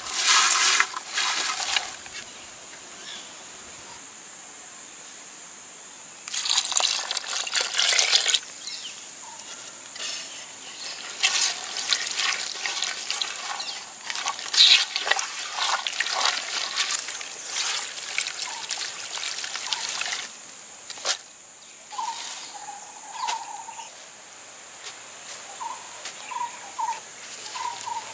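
A bare hand mixing sliced shallots, garlic and pandan leaves in a pot by hand: two bursts of dry, crunchy rustling early on, then wet, splashy mixing with small clicks as the mix is worked through a liquid.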